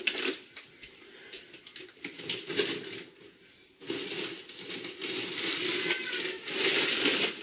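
Plastic food bag crinkling and rustling as it is handled, sparse at first and getting louder and denser from about halfway through.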